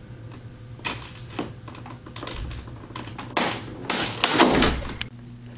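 Small rod-and-connector frame chair clicking and creaking under a seated person's shifting weight. The clicks are scattered at first and come thicker and louder in the last two seconds.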